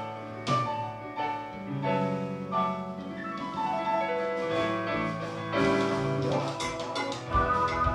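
Rock band playing through the monitors at a sound check, keyboard chords to the fore, with a few cymbal hits; deep bass notes and drums join in about seven seconds in.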